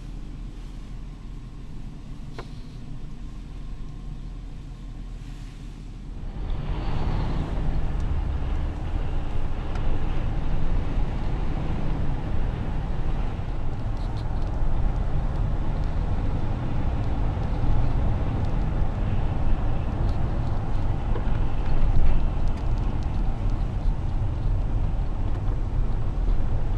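Road and wind noise inside a moving car, a low steady hum at first that becomes much louder about six seconds in and stays loud.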